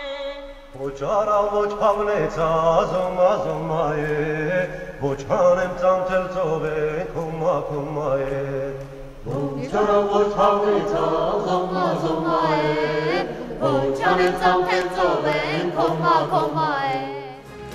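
Choir singing a chant-like melody over a steady low drone. The voices begin about a second in, sing in phrases with short breaks about five and nine seconds in, and stop just before the end.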